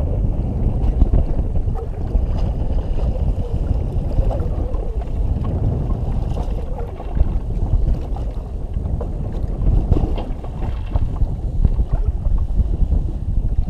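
Wind buffeting the microphone over a choppy sea, in uneven gusts, with water lapping against the jet ski's hull.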